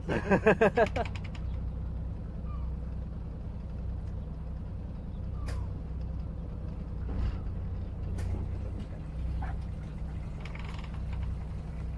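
A sailing yacht's engine running steadily at low revs while the boat manoeuvres slowly, a constant low hum.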